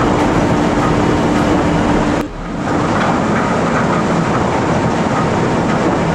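Underground continuous mining machine's rotating cutter drum grinding into rock: a loud, steady grinding rumble with a steady hum over the first two seconds. It drops out briefly a little over two seconds in, then the grinding resumes from a second cutter head.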